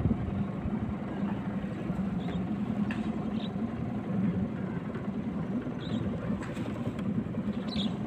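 Outboard motor of a small river speedboat running steadily at cruising speed, one even drone with no change in pitch.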